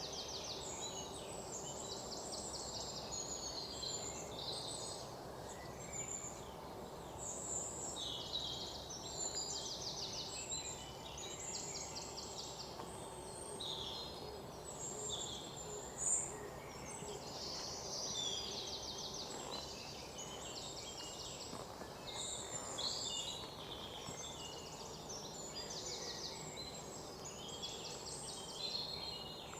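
Several birds chirping and singing, with many short calls and rapid trills overlapping, over a steady background hiss.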